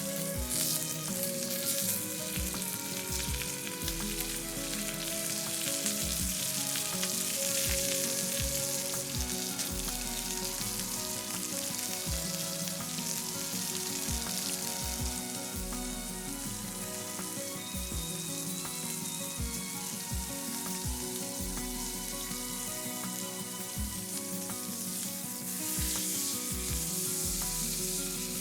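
A block of meat sizzling steadily as it sears over a wood fire, with fat spitting in a continuous hiss.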